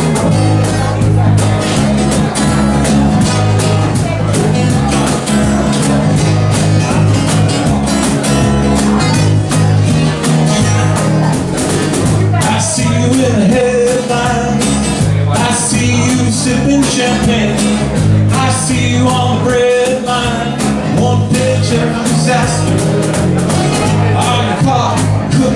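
Live band playing an instrumental passage: acoustic guitars strumming over a steady bass line, with a lead melody coming in about halfway through.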